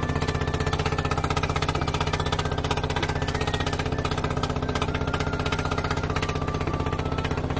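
A wooden boat's inboard engine running steadily under way, with a rapid, even pulse.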